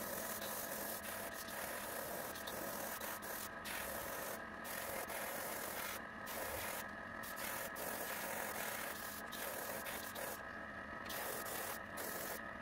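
Airbrush spraying opaque black paint onto a resin lure: a steady air hiss that breaks off several times as the trigger is let go, over the constant hum of the airbrush compressor.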